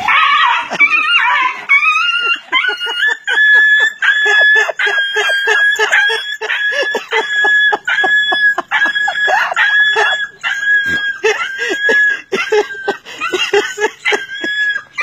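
An animal screaming in distress: a sudden burst of shrill cries, then a long run of repeated high-pitched cries, about two a second.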